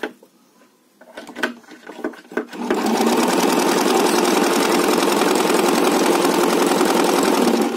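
Domestic sewing machine fitted with a side-cutter overlock foot, stitching a zigzag overlock seam at steady speed while the foot trims the fabric edge. It starts about two and a half seconds in, after a few light handling clicks, and stops right at the end.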